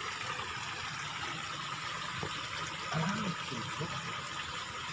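Steady rush of water flowing along a small ditch, with a faint voice heard briefly about three seconds in.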